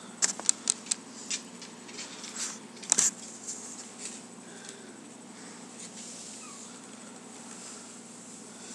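Shih Tzu puppies scuffling in a wire crate: a quick run of sharp clicks and taps in the first three seconds, the loudest a cluster about three seconds in, then only a low steady hiss.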